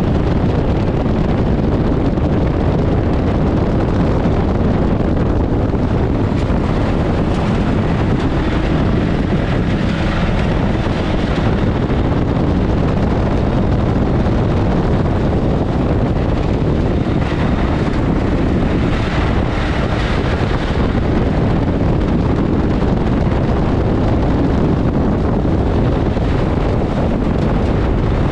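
Ford Crown Victoria race car's V8 engine running under steady load around a dirt track, heard from inside the stripped, roll-caged cabin, together with wind noise on the microphone.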